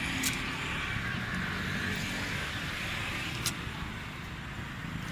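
Steady street noise with a low traffic rumble and hiss, broken by two sharp clicks, one near the start and one about three and a half seconds in.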